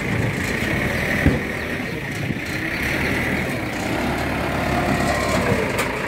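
Heavy diesel vehicle engine running steadily, with a single sharp knock about a second in.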